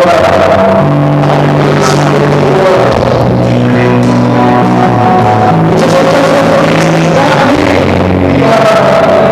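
Live rock band playing loudly: electric guitar, bass guitar and drums, with long held bass notes that change every second or two under dense guitar and cymbals. The recording is poor-quality.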